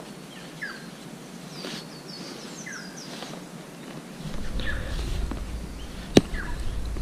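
Birds calling in short, falling chirps, several times. From about four seconds in a low rumble of handling noise joins them as the ground is dug by hand. A single sharp knock comes about six seconds in.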